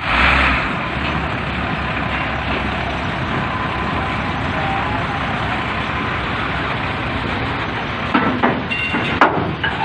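Heavy trucks driving off a ferry: a steady, loud rumble of engine and road noise, with a few sharp knocks about eight to nine seconds in.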